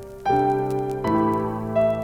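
Slow, gentle piano background music, with new chords struck about a third of a second and a second in, each left to ring.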